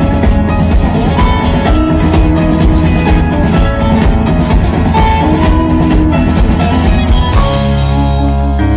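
Rock band playing live through a PA: drum kit, electric guitars and bass in an instrumental passage with no singing. About seven seconds in, the drums stop and the band holds a ringing chord.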